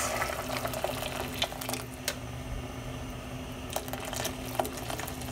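Freshly added boiling water bubbling and crackling over sautéed vegetables in a stainless steel pot, with scattered small pops, easing slightly after about two seconds. A steady low hum runs underneath.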